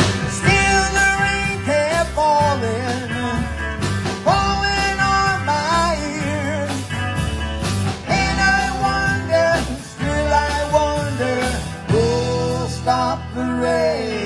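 Live band playing a rock song with electric guitar, bass and drums, the guitar carrying bending melodic lines over a steady beat.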